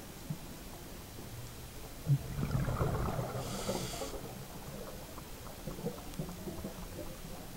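Muffled underwater sound through a camera housing: a scuba diver's exhaled bubbles rumble and gurgle for about two seconds, starting about two seconds in, with a brief hiss near their end. The rest is a low steady underwater rumble.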